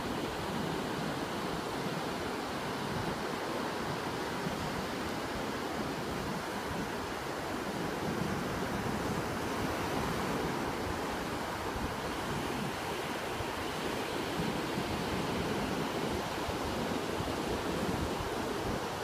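Ocean surf breaking on a beach, a steady even wash of waves, with some wind.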